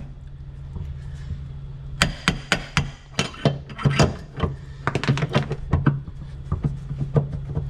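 Quick irregular runs of sharp metal knocks, starting about two seconds in, as a stern-drive engine alignment tool is worked and tapped through the gimbal bearing toward the engine coupler, over a steady low hum. The tool is binding rather than sliding home, which the mechanic puts down to the engine sitting out of alignment.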